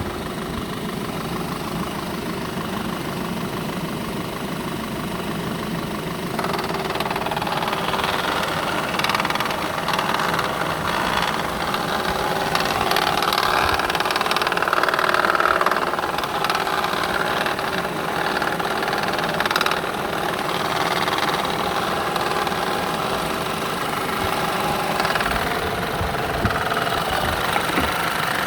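A 2.0 TFSI turbocharged four-cylinder petrol engine running with a knock that the owner cannot explain. It grows louder about six seconds in.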